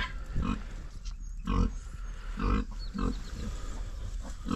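Idaho Pasture Pig sow grunting: a series of short, low grunts repeating every half second to a second.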